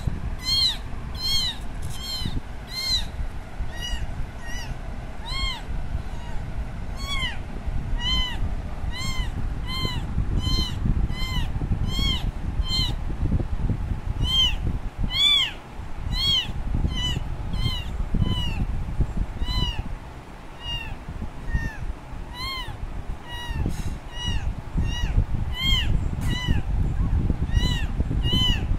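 A very young kitten meowing loudly and over and over, short high-pitched cries about one to two a second, over a low rumble: the distress calls of a kitten separated from its mother.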